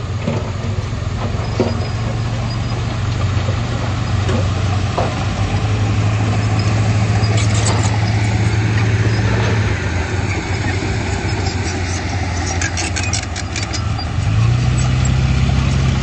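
Komatsu D31P bulldozer's diesel engine running steadily. Its note drops a little about ten seconds in and rises near the end. Clusters of sharp metallic clicks come in the middle and again near the end.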